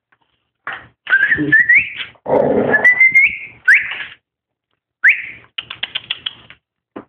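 Dogs playing rough: repeated high, rising whines that climb in steps, with a low growl under them, then another short whine and a quick run of claw clicks on a wooden floor as a dog runs.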